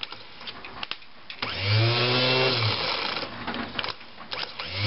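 Kohler Command 12.5 starter motor bench-tested off a battery jump pack: crackling sparks as the lead touches the terminal, then the starter spins up with a whine, runs about a second and winds down, and starts again near the end. It is running after a brush that had been shorting was insulated with a plastic washer, a fault that had left it running slow.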